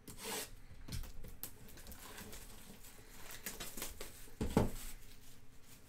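Hands opening a cardboard trading-card box: rustling, light tearing and scraping as the wrap and lid are worked off, with a dull thump about four and a half seconds in.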